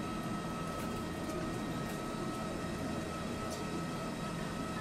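Steady cabin noise of a Tosaden streetcar in heavy rain, with a constant high-pitched hum and a few faint ticks.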